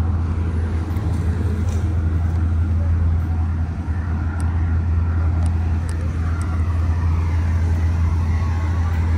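Steady, loud low hum of an idling diesel engine, with a few faint light clicks about halfway through.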